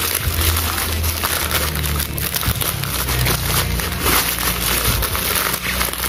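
Plastic bubble wrap and clear film wrapping crinkling and rustling in irregular bursts as hands pull it open and work a pack of foam darts out of it.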